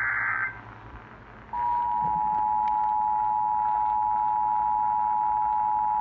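An AM radio broadcasting an Emergency Alert System activation. The end of a short burst of SAME data tones is heard, then about a second of radio hiss. At about a second and a half in, the steady two-tone EAS attention signal comes on and holds.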